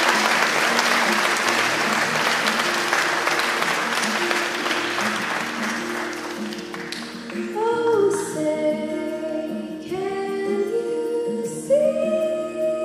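Audience applause that fades out over the first six seconds or so, then a slow piano and violin introduction begins. Near the end a girl starts singing a held note into a microphone over the accompaniment.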